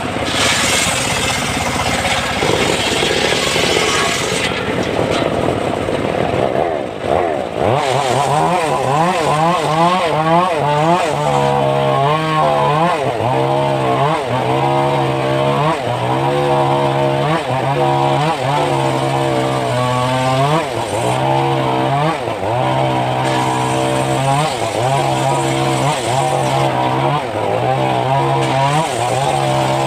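A homemade engine-driven circular sawmill runs and cuts timber into planks. From about eight seconds in, its engine note wavers up and down every second or two.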